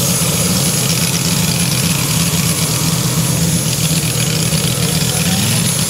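Large radio-controlled model airplane engine idling steadily, its pitch rising slightly near the end.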